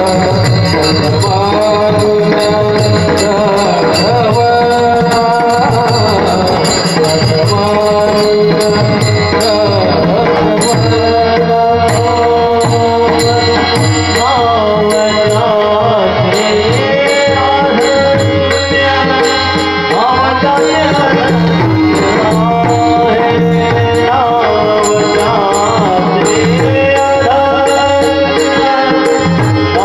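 Kirtan devotional music: a melody sung over a hand drum and small cymbals struck in a steady rhythm.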